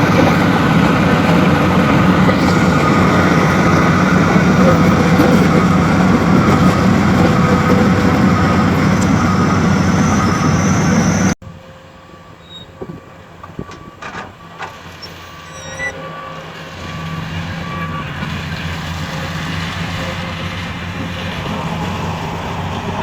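Heavy diesel earthmoving machinery running loud and steady. About eleven seconds in it cuts off abruptly to a quieter stretch with a few knocks and a reversing alarm beeping, then a diesel engine comes back up steadily.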